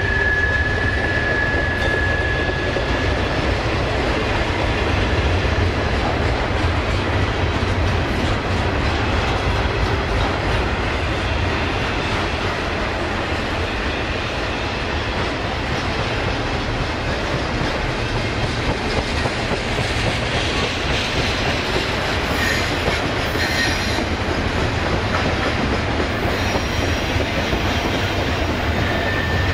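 Double-stack intermodal freight cars rolling past: a steady rumble and clatter of steel wheels on rail. A thin, high wheel squeal sounds at the start and fades within the first few seconds, with fainter squeals later and a brief one near the end.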